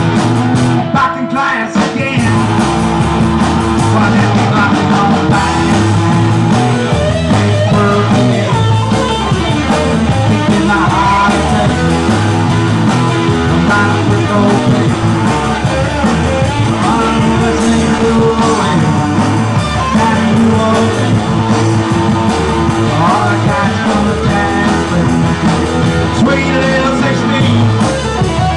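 Live rock band playing electric guitars and drums.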